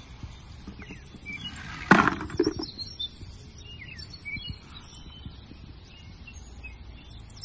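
Birds chirping throughout, with a sharp clatter about two seconds in as die-cast metal toy trains land in a plastic bucket.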